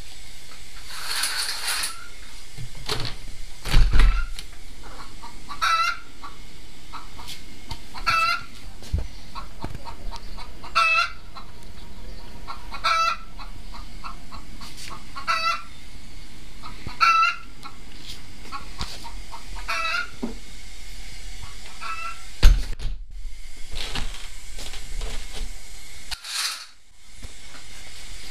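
A short clucking call repeated about every two and a half seconds, with softer clucks between them. A loud bump comes about four seconds in and another, the loudest sound, later on.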